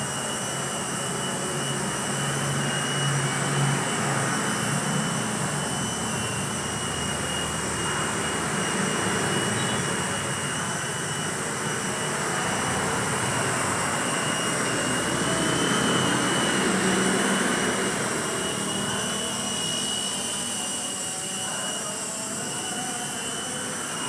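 Air Victor 6608A mini RC toy helicopter running: its small electric motors and rotors give a steady high whine over an airy whir, the pitch wavering slightly as the throttle shifts.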